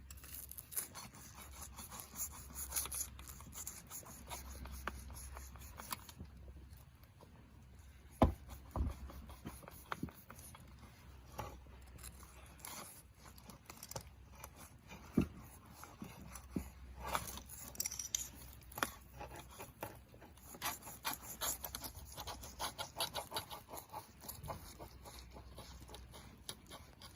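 Irregular small taps, clicks and scrapes of things being handled, with a sharp knock about eight seconds in and another about fifteen seconds in.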